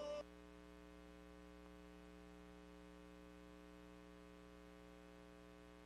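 Near silence with a faint steady hum; the tail of the theme music drops away a moment in.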